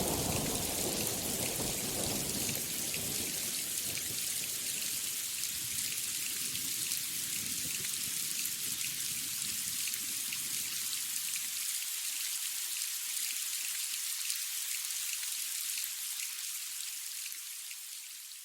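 Steady rain hiss with pattering drops, a low thunder rumble dying away under it during the first half. The rain fades out near the end.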